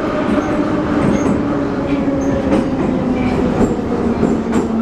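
Moscow metro 81-717.5 car heard from inside, running through the tunnel: a steady rumble of wheels and running gear with a motor whine that slowly falls in pitch as the train slows for the next station. A couple of sharp clicks come near the end.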